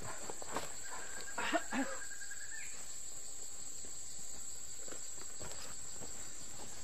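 Steady high-pitched drone of insects, crickets or cicadas, as forest ambience. A few faint rustles come in the first two seconds.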